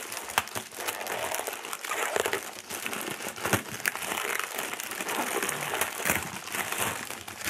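Wrapping paper crinkling and crackling as a small gift box is unwrapped by hand, with many sharp crackles throughout and a louder snap about three and a half seconds in.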